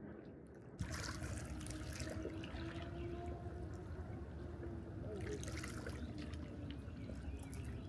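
Steady rush of water, heavy in the low end, starting abruptly about a second in.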